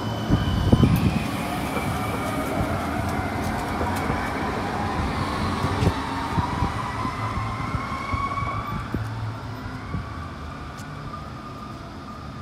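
CAF Urbos 100 light rail tram pulling away from a stop, its traction motors whining in a slowly rising pitch as it gathers speed past and then fades as it moves off. A short loud low thump comes about a second in.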